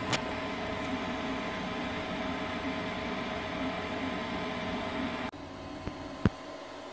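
Self-built 3D printer running a print: a steady whirring noise with two steady tones. The noise drops suddenly to a quieter level about five seconds in, and there is a single sharp click near the end.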